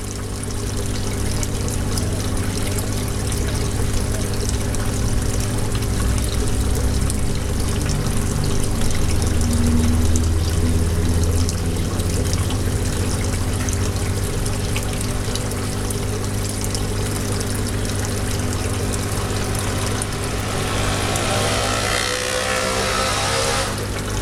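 A steady low mechanical hum with a constant hiss over it.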